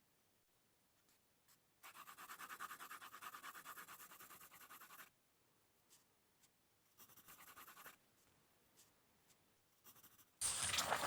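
Pencil scratching on paper in quick repeated strokes, a longer run of shading a couple of seconds in and a shorter run a few seconds later. A louder, denser scratching starts near the end.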